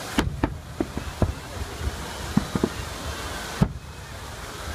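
Fireworks display: shells bursting overhead in several sharp bangs at irregular intervals, a louder one about three and a half seconds in, over a steady low rumble.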